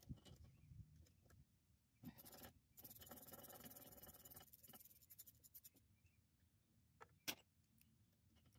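Faint metal-on-metal scraping and clicking of a hand tool working on a rusty Ford Model T rear axle hub, with a longer rasping stretch a few seconds in and one sharp click about seven seconds in.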